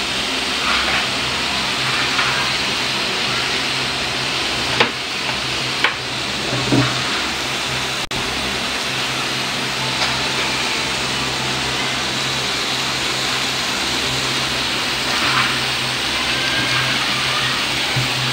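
Meat and eggplant sizzling steadily on the hot grill plate of an electric griller, with a low steady hum under it and a few light clicks around the middle.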